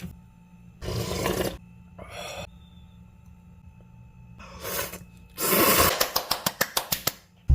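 A few short rustling noises, then a quick run of knife strokes on a cutting board, about six a second, as green onion is sliced.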